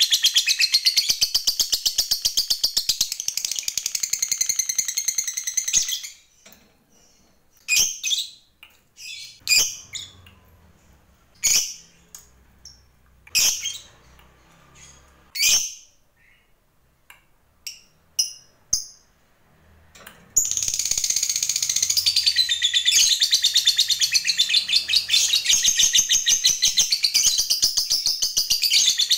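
A lovebird chattering in a long, fast, unbroken run of high notes, the 'ngekek' that fanciers prize. About six seconds in it breaks off into a dozen or so separate short chirps with pauses between. About twenty seconds in the long rapid chatter starts again.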